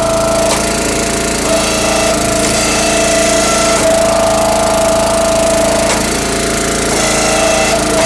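Small gas engine of a CountyLine 25-ton log splitter running steadily. Its pitch shifts slightly a few times.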